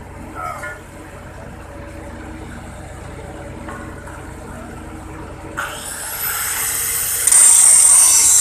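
Under a low steady hum, an angle grinder starts about two-thirds of the way in with a rising whine. Near the end it bites into a metal flange and gives a loud, high metal-on-metal screech.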